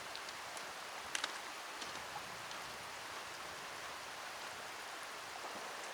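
Steady outdoor background hiss, with a few faint ticks about a second in.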